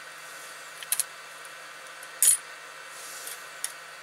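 The glued plastic side cover of a Sony Bloggie MHS-CM5 camcorder being prised off its body, its glue softened by hot air: a couple of sharp clicks about a second in, then a louder snap a little after two seconds, and a last faint click near the end, over a steady hum.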